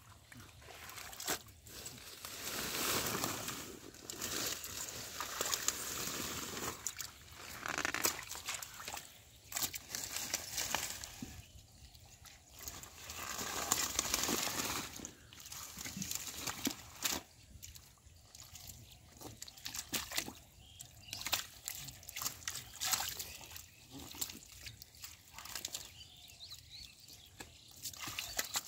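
Hands working in wet mud and shallow water among water hyacinth: squelching and sloshing, with leaves and stems rustling and snapping in irregular bursts.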